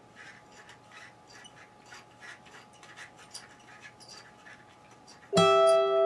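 Faint scattered clicks and taps, then about five seconds in a loud ringing chord of several pitches that starts suddenly and holds steady.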